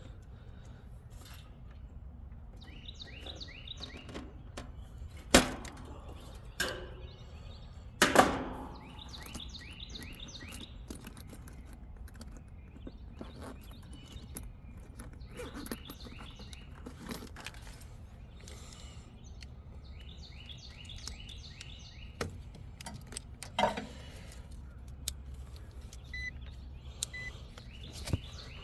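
A songbird singing short phrases of quick falling notes several times over, with a few sharp metallic knocks and clatters from handling tools or panels, the loudest about eight seconds in, over a steady low hum.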